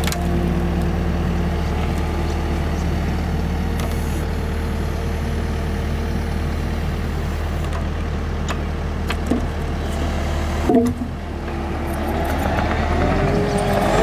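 Compact track loader engine running steadily under load while its grapple pulls a post out of the ground. A little under eleven seconds in, the engine note changes and there is a brief squeal.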